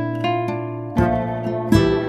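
Background music of gently plucked string notes, with a fresh chord struck about a second in.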